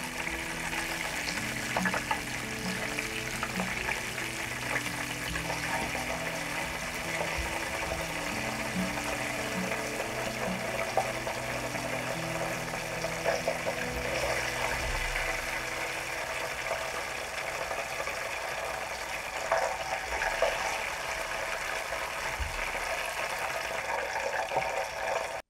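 Coated chicken drumsticks deep-frying in oil in a pot: a steady, dense crackling sizzle. Soft background music plays underneath.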